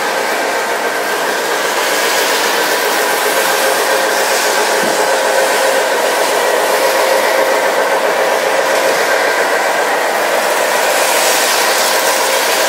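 O scale model trains running on the layout: a steady whirring hum of locomotive motors and wheels rolling on the track, growing a little louder after about two seconds.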